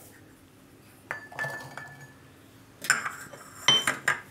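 Metallic clinks and knocks from a small steel mortar as peeled garlic cloves are dropped in and handled, some strikes ringing briefly. The strikes come a few at a time, more of them in the second half.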